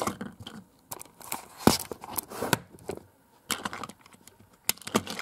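Plastic clicks and knocks of a Trackmaster toy engine and its tender being handled and pushed together at the coupling, with one louder knock a little under two seconds in.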